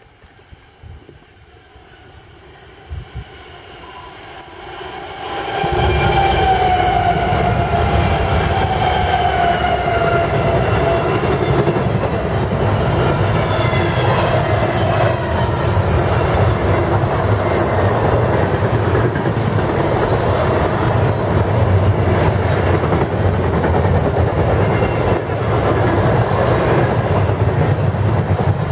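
Diesel-hauled double-stack container freight train passing close by. Its rumble swells over the first few seconds, and an engine note falls slowly in pitch as the locomotives go by. Then the wagons roll past in a steady loud rumble with a quick clickety-clack of wheels over rail joints.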